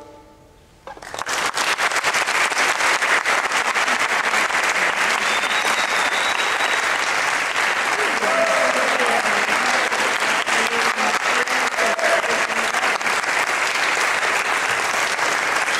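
The last notes of a classical guitar fade out, and about a second in an audience breaks into steady applause, with a few voices calling out in the middle.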